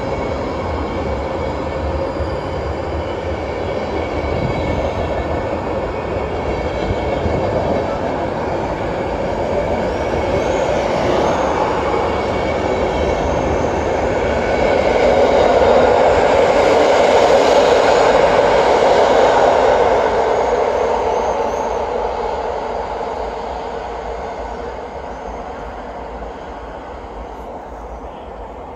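Passenger coaches of a departing PKP Intercity train rolling past along the platform, their wheels running on the rails. The noise builds to its loudest a little past halfway, then fades as the last coach passes and the train draws away.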